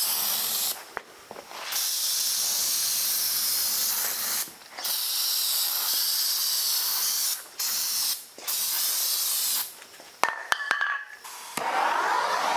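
Aerosol can of carb cleaner spraying into the bead gap of a tire on its wheel, in several long hisses with brief pauses, stopping about ten seconds in. A few sharp clinks follow as the can is set down on the concrete floor, then a short rushing noise near the end.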